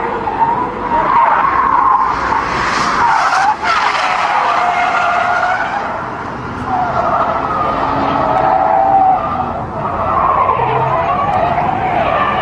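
Car tyres screeching in long, wavering squeals as cars slide sideways in a drift, the pitch bending up and down, with a brief break about three and a half seconds in.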